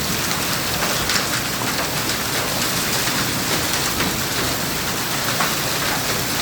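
Hailstorm: hail and heavy rain pelting down, a dense steady hiss dotted with many sharp ticks of hailstones striking.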